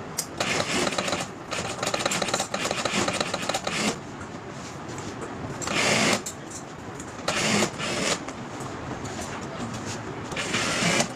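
Industrial sewing machine stitching cricket pads, running in a fast, even rattle for about four seconds, then in shorter bursts.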